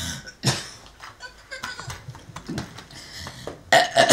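A woman groaning and crying out in short, breathy bursts, with a loud cry near the end.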